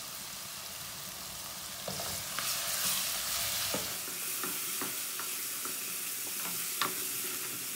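Beef pieces sizzling in hot oil in a non-stick kadhai. From about two seconds in, a wooden spatula stirs them, and the sizzle grows louder with a few sharp knocks of the spatula against the pan.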